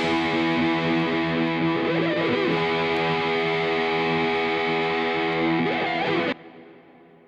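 Background music: a sustained, distorted electric-guitar chord that cuts off sharply near the end and rings away.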